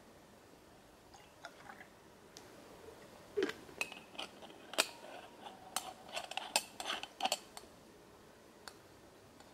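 Small metal camp coffee gear being handled, a stovetop moka pot and a little metal cup: a run of light clinks and knocks, some ringing briefly, starting about three seconds in and lasting about four seconds.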